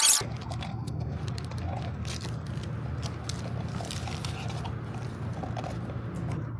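Scattered light clicks and scrapes of packaging being handled during an unboxing, over a steady low hum.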